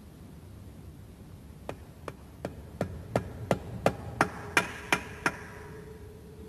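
A hammer tapping a seal-installer drift about eleven times, roughly three blows a second and growing louder, driving a new oil seal into the oil pump housing on the crankshaft nose of a Rover K-Series engine.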